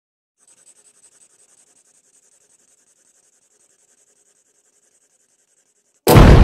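A faint high hiss, then near the end a loud explosion sound effect bursts in suddenly, with a deep low rumble.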